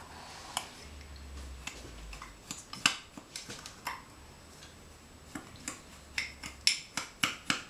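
Metal spoon stirring sugar and custard powder in a cup, clinking against its sides in short, uneven clicks that come more often near the end.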